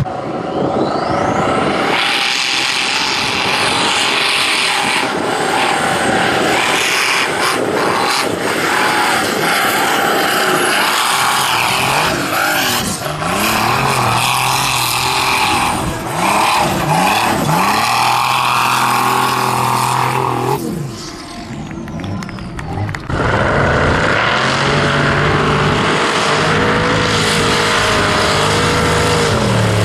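Formula Offroad hillclimb car's V8 engine at high revs, its pitch repeatedly climbing and falling as the throttle is worked. The sound drops away briefly about two-thirds of the way through, then returns just as loud.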